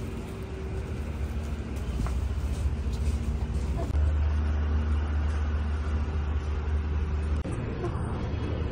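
Steady low rumble of a road vehicle with a faint steady hum. The sound changes abruptly about four seconds in and drops out for an instant about seven seconds in.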